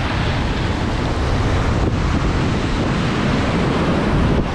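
Shallow ocean surf washing in and foaming over the sand, with wind rumbling on the microphone.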